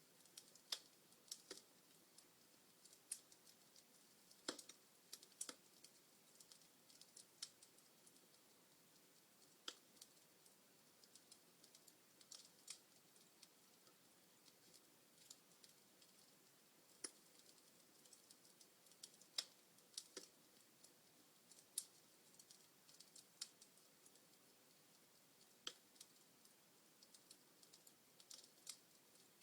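Wood fire in a fireplace crackling: sharp, irregular pops and snaps from the burning logs over a faint hiss.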